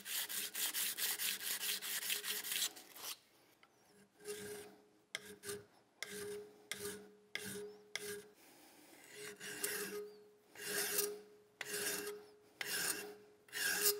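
Hand file and emery paper rasping on the steel of a Ruger single-action revolver frame: quick back-and-forth sanding strokes for about three seconds, then slower, separate file strokes about once a second.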